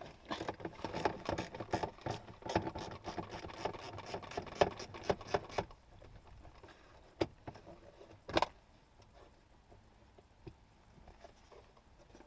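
Hand tools and small metal parts rattling and clicking in quick irregular succession, then a few single knocks, the loudest about eight and a half seconds in.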